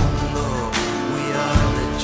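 Instrumental stretch of a song: sustained chords over a steady drum beat, a low kick about every 1.5 s with a snare crack between them.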